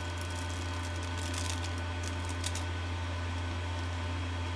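Steady low electrical hum, with faint crinkling of foil and cardstock being handled about a second in and again near the middle.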